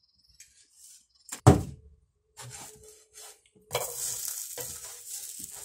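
A single loud knock about a second and a half in, then the steady sizzling hiss of a hot buttered frying pan as a pressed hot dog sandwich is slid out of it.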